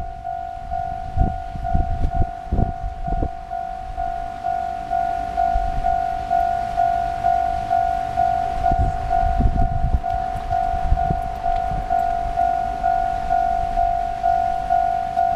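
Japanese railway level-crossing alarm bell sounding its warning, a steady electronic ding repeating at an even pace, with gusts of wind rumbling on the microphone.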